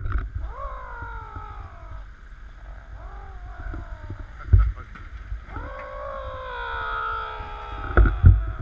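Three long wailing tones, each sliding down in pitch, the last one the longest, over a low rumble. There is a sharp thump about halfway through and another near the end.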